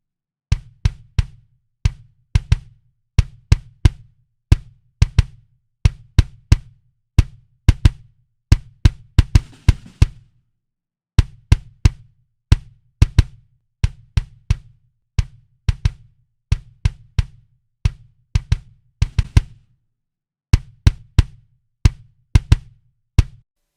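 Kick drum playing a repeating pattern of punchy hits, each with a sharp click on top of a low thump, with a couple of short pauses. Its attack is being reshaped live with Logic's Enveloper plugin, changing the punch of each hit.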